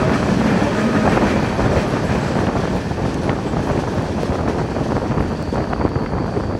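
Passenger train running at speed, heard from on board: a steady rumble of wheels on the track with a few faint clicks.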